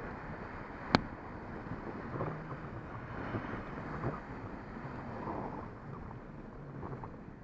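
Wind buffeting the microphone of a camera on a moving bicycle, over a low rumble, with one sharp click about a second in.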